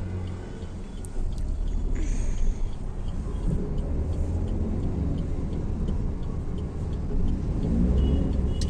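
Car cabin noise while driving: a steady low rumble of the engine and road, heard from inside the car, with a faint regular ticking about twice a second.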